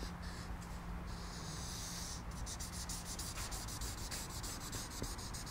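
Felt-tip marker rubbing on flip-chart paper as a line is drawn over and over, a run of short scratchy strokes that come thicker from about two seconds in.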